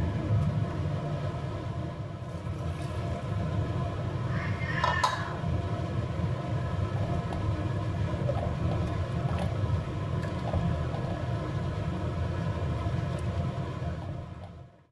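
Steady low mechanical rumble with a faint constant hum over it, like a running motor or fan. A brief higher scrape about five seconds in. Fades out just before the end.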